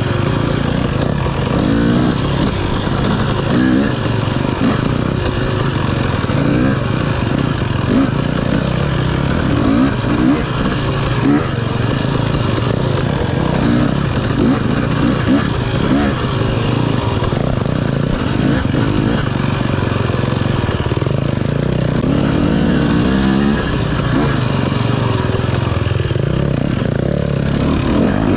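KTM 250 dirt bike engine revving up and down again and again as it is ridden along a tight trail, the pitch climbing and dropping every second or two.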